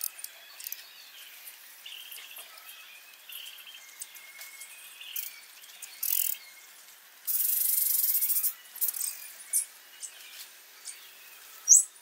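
Small birds chirping in short, high calls, with scattered sharp clicks and taps. A loud hiss lasts about a second just past the middle.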